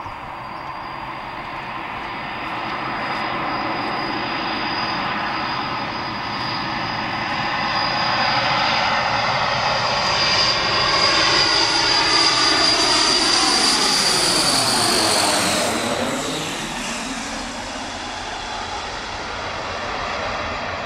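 Transall C-160D's two Rolls-Royce Tyne turboprops on landing approach, growing louder as the aircraft passes low overhead. A high turbine whine rides on the propeller roar and drops in pitch as the aircraft goes past, about fifteen seconds in. The sound then eases off as it flies away.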